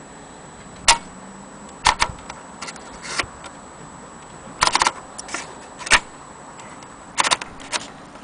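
1930 Imperial Companion portable typewriter clacking: irregular sharp mechanical clicks, some single and some in quick clusters around the middle and near the end.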